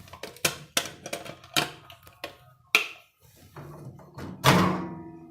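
Quick run of clicks and light knocks from handling a bowl at a microwave oven, with one louder knock about four and a half seconds in, followed by a low steady hum.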